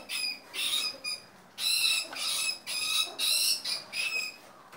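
A cornered rat squealing in distress, a run of about eight short, shrill squeaks in quick succession.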